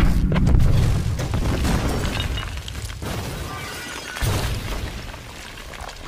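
Large building explosion: a deep rumbling boom at the start that slowly dies away, with debris crashing down, and a second boom about four seconds in.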